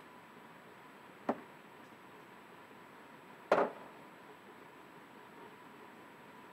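Two sharp knocks about two seconds apart, the second louder, inside a quiet parked car's cabin, over faint hiss and a thin steady high tone.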